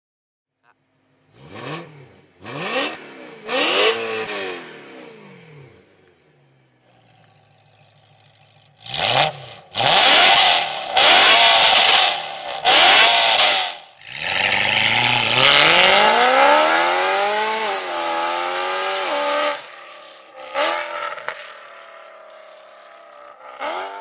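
BMW E92 M3's V8 through an Fi Exhaust valved exhaust. It gives three short free-revs with the exhaust valves closed, then settles to idle. With the valves open it makes louder revs, then launches hard, its pitch rising as it pulls away before fading out. A last short rev comes at the very end.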